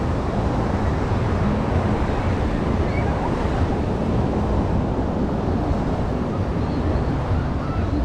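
Steady wash of surf on a sandy beach, with wind rumbling on the microphone.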